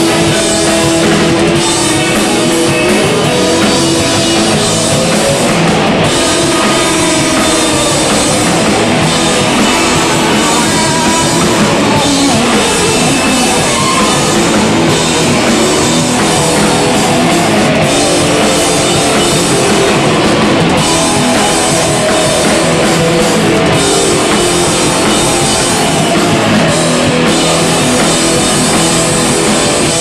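Live rock band playing loud: electric guitars and a drum kit.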